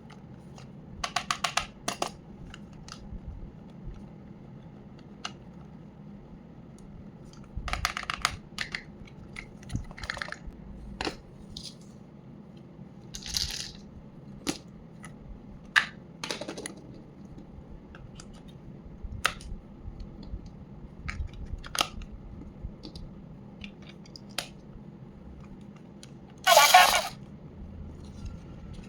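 Toy packaging being handled and opened: scattered clicks and taps of hard plastic with short crinkling rustles, and a louder half-second rustle near the end.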